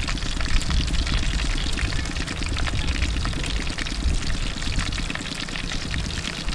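Wind buffeting the microphone, a steady rumbling hiss, with many small crisp crackles as a crunchy fried shrimp fritter is broken apart and eaten.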